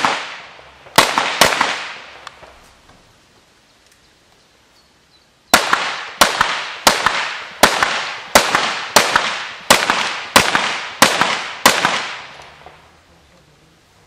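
Glock pistol firing during an IPSC stage: two quick shots about a second in, then, after a pause of about four seconds, a string of about ten shots roughly two-thirds of a second apart, each with a short echo trailing off.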